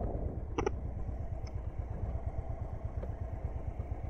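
Royal Enfield Continental GT motorcycle engine running slowly or idling with a low, even beat, with a short click about half a second in.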